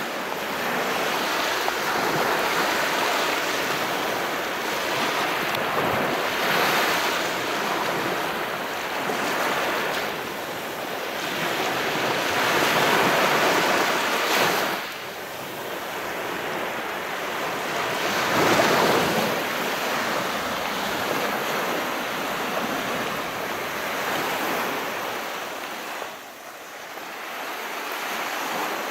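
Calm sea waves washing in and drawing back, a steady rush that swells and eases every few seconds.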